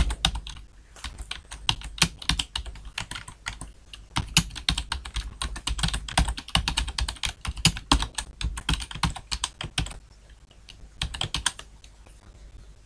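Typing on a computer keyboard: a fast, uneven run of key clicks that stops about ten seconds in, followed a moment later by a few more keystrokes.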